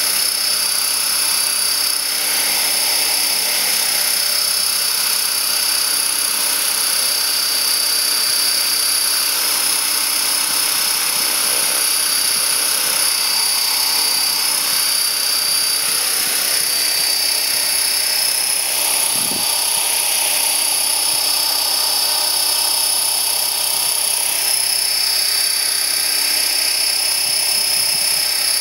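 Align T-Rex 500 electric RC helicopter running, its brushless motor and drivetrain giving a steady high whine over the rush of the spinning rotor blades.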